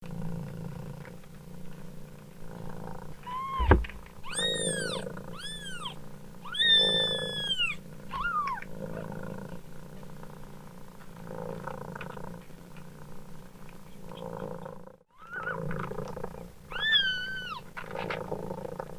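A mother cat purring steadily in pulses while a kitten meows in high, arching cries, about seven times: a run of them from about three to eight seconds in, one of them long, and two more near the end. A sharp knock about four seconds in is the loudest sound.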